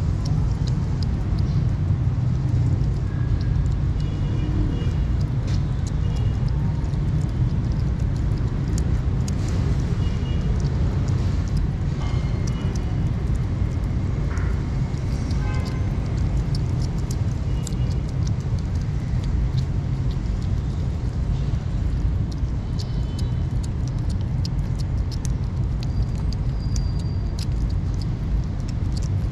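Kittens eating wet cat food close up, chewing and lapping with many small clicks and smacks, over a steady low rumble.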